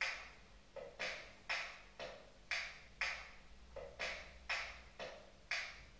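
Recorded zamba percussion rhythm: sharp drum strikes that ring out briefly, spaced about half a second apart in a repeating uneven pattern, with a duller, lower hit three times.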